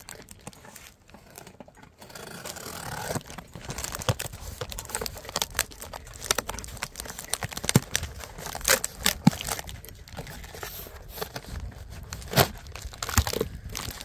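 A cardboard shipping box being opened by hand: packing tape slit and torn and the flaps pulled back, with irregular crinkling, rustling and sharp snaps that grow busier after the first couple of seconds.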